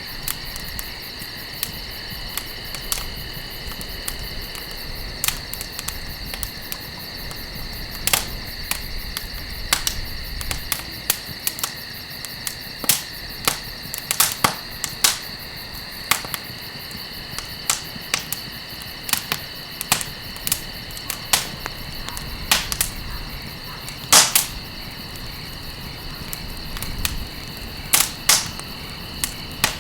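Campfire burning, the wood crackling with irregular sharp pops and a few louder snaps, the biggest about two-thirds of the way through and near the end. A steady high insect trill runs underneath.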